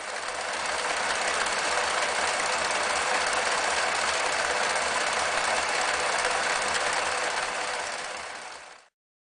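Riccar 8600 electric sewing machine running and sewing at a steady speed. It builds up to speed in the first second, then slows and stops shortly before the end.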